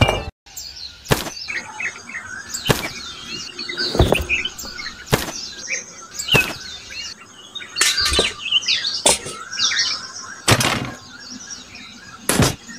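Birds chirping in the background, with about ten sharp knocks roughly a second apart as miniature bricks and small cement bags are set down on a toy truck's flatbed trailer.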